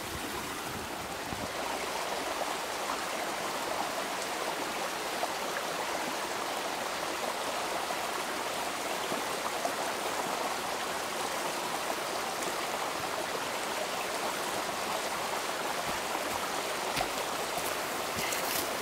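Small mountain creek running steadily over rocks and a little cascade.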